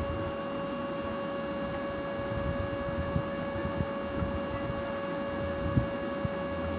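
A steady electrical hum, one high tone with fainter overtones, over a faint irregular low rumble.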